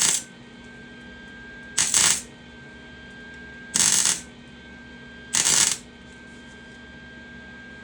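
Arc welder laying short tack welds on a steel frame: half-second bursts of crackling arc about every two seconds, with the welder's steady hum in the pauses. The welder is being pulsed on and off so the weld can cool between taps while filling a hole.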